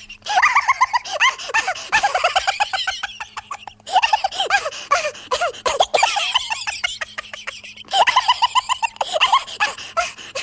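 High-pitched laughter in quick repeated bursts, breaking off briefly a few times.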